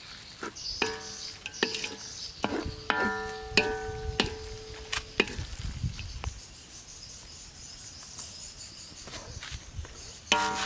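A wooden ladle scrapes and knocks against a large metal wok while stirring spaghetti in tomato sauce: a run of sharp knocks, several followed by a short ringing tone from the wok.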